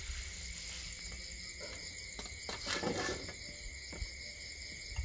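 Night insects chirring steadily in high, pulsing tones. A short rasping noise comes about halfway through, around the time the wok is being worked with a metal utensil.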